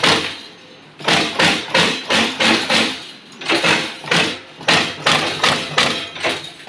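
Electric terminal crimping press stamping again and again as wires are fed in one at a time: sharp strikes, about two to three a second, with a brief pause near the start.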